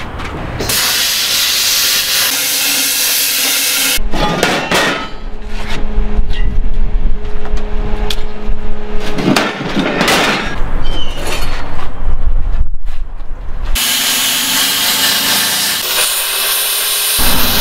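Plasma cutter hissing as its arc cuts through steel plate, near the start and again near the end. In between comes a louder stretch of heavy steel pieces knocking and clanking, with a steady hum under it.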